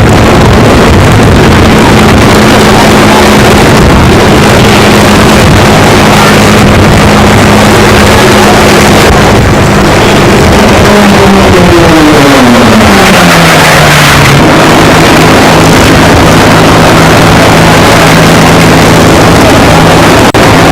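Loud racing-aircraft engine noise, running steadily, then about halfway through its pitch falls over a few seconds and settles lower.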